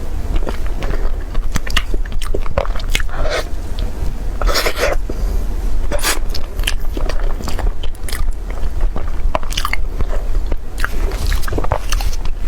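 A person biting and chewing crunchy food, with many sharp, irregular crunches, over a steady low hum.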